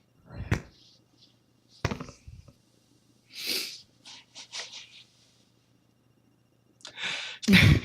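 A person sneezing in a fit: a series of separate short sneezes and sharp breaths, then the loudest, longest sneeze near the end.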